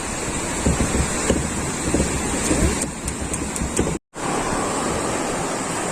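Sea waves with wind buffeting the microphone, a steady rushing hiss with low rumbles. It breaks off for an instant at an edit about four seconds in, then goes on evenly.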